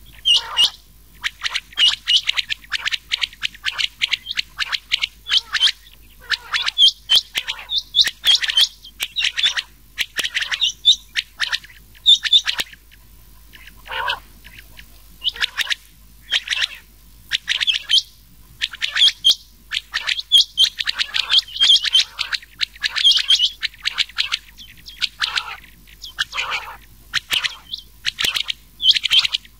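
Rain quail and common quail calling together: rapid series of short, sharp high chirps, broken by brief pauses, with a few lower notes that sweep downward, one in a lull about halfway through.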